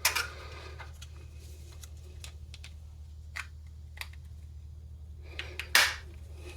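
Clicks and taps of a plastic key fob case as its rear cover is fitted and pressed on by hand: a louder click at the start, a few faint ones, and another louder pair of clicks near the end.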